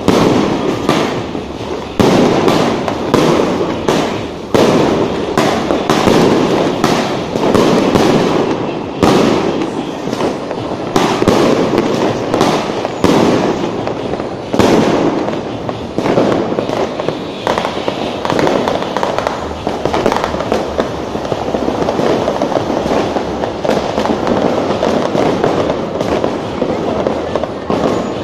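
Dense barrage of New Year fireworks and firecrackers going off, with many sharp bangs each second. After about halfway the separate bangs thin out into a steadier mass of crackling.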